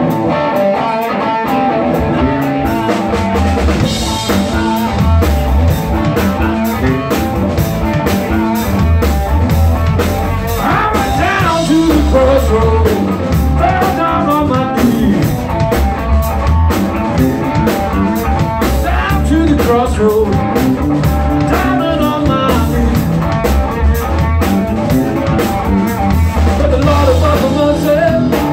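A live, amplified blues trio playing: electric guitar with bending lead lines over bass guitar and a drum kit.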